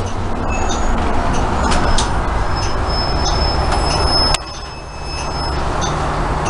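Cabin noise of a Nova LFS articulated city bus with a ZF Ecomat automatic transmission under way: a steady low engine and driveline drone with road noise and faint high-pitched squeals. A sharp click comes about four and a half seconds in, and the noise drops for a moment before building back up.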